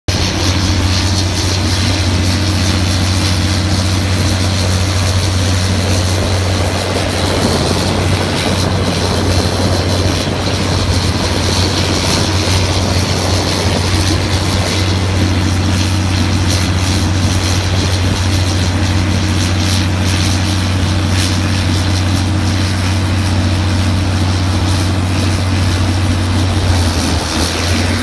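Bruno Monster forestry wood chipper running steadily under load: a loud, constant low drone with a continuous hiss of wood chips being blown out through the discharge chute.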